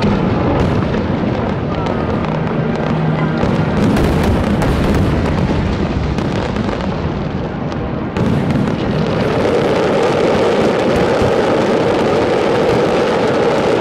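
Fireworks display going off continuously, a dense run of bangs and crackles with music playing alongside. About eight seconds in the barrage grows louder and thicker into a steady rumble of overlapping bursts.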